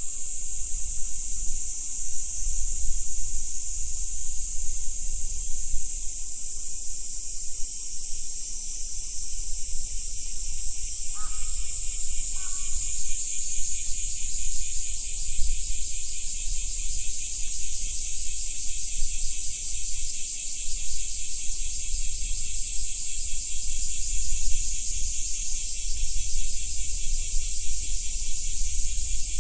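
Dense chorus of insects, a steady high hiss-like buzzing. About halfway in, a fast, evenly pulsing trill joins it, and a third of the way in two faint short notes sound.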